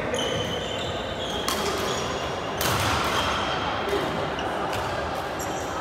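Badminton shoes squeaking on a wooden court floor in short, repeated high squeaks during a rally, with a few sharp racket-on-shuttlecock hits.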